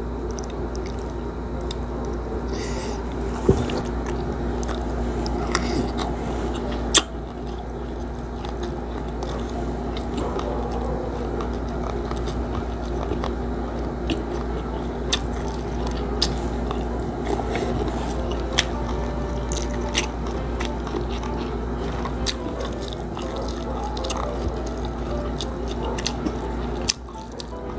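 Close-miked chewing and biting of fried milkfish (bangus) with rice and vegetables in coconut milk, eaten by hand, with scattered sharp mouth clicks over a steady low hum.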